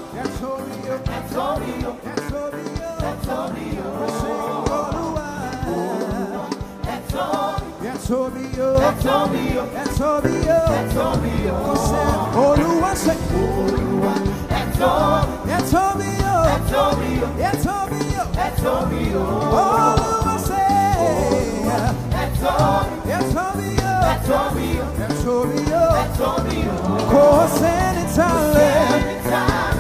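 Upbeat gospel praise music: singers over a band with bass and drums, growing fuller and louder about ten seconds in.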